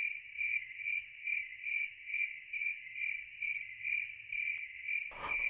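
Crickets chirping in a steady high trill that swells and fades about twice a second.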